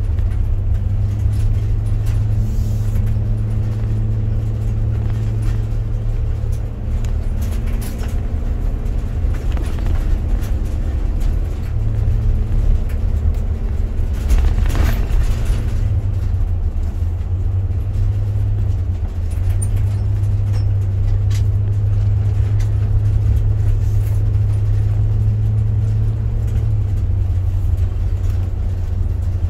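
Car engine and tyre noise heard from inside the moving car: a steady low drone with a faint hum of engine tones above it, and a few brief knocks.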